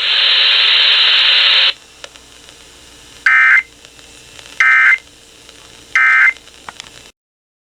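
Loud radio hiss for about a second and a half, then three short bursts of warbling data tones about 1.3 s apart. These are the Emergency Alert System end-of-message (EOM) code marking the end of the severe thunderstorm warning broadcast.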